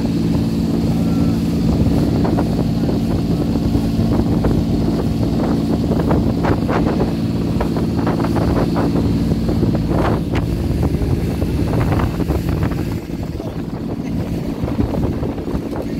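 Motorized outrigger boat under way: the engine drones steadily while water rushes and splashes along the hull, with bursts of spray about midway through.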